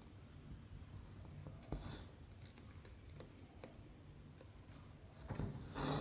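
Embroidery floss pulled through 14-count cross-stitch fabric by hand. There is a short scratchy rub just under two seconds in, then a few faint ticks of the needle in the cloth, then a longer, louder rasp as the thread is drawn through near the end.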